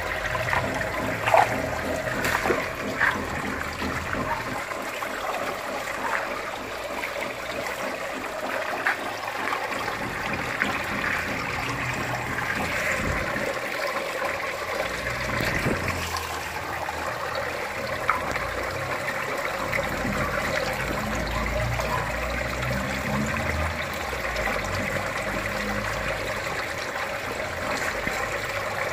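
Water trickling and splashing steadily into a fish tank, with a few sharper splashes in the first few seconds.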